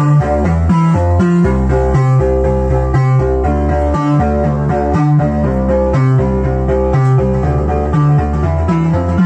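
Synthesizer music from Behringer MS-1 and Pro-1 analog synths, played through a Behringer Virtualizer Pro DSP2024P effects processor. A plucky bass line steps through a repeating pattern of short notes under held higher notes.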